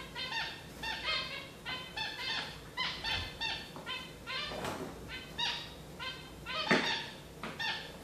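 Gouldian finches calling: a quick, steady run of short chirps, about three a second, with a couple of louder, sharper notes just past the middle.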